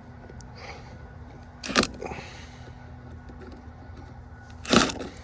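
Two short metallic clinks and scrapes about three seconds apart, from hand tools working at the rusted mounting screws of an old outdoor hose bib.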